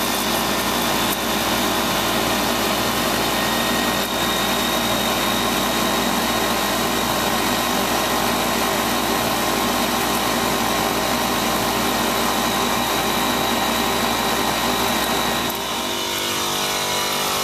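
Refrigeration condensing unit's condenser fan motor running steadily at full speed, its failed Alco fan speed controller bypassed with a jumper; a constant mechanical hum and whir. Near the end the low rumble drops away.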